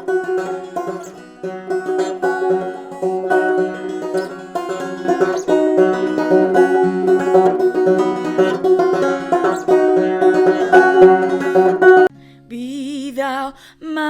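Banjo picked in a rapid run of notes that stops about twelve seconds in. Near the end a woman starts singing a hymn, with wavering held notes over a steady low accompanying tone.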